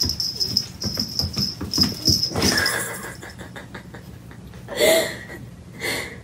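A cat crying out twice in the second half, a loud meow-like call and then a shorter one about a second later, after a string of high, evenly repeated chirps over the first couple of seconds.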